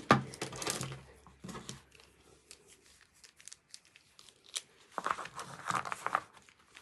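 Packaging crinkling and rustling as it is handled, in a spell near the start and another about five seconds in, with scattered light clicks and taps in between.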